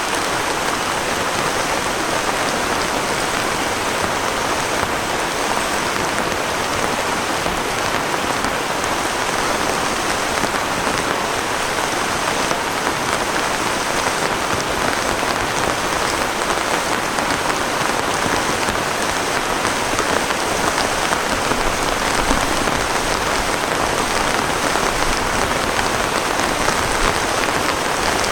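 Heavy rain falling steadily, an even, unbroken hiss of drops on surfaces.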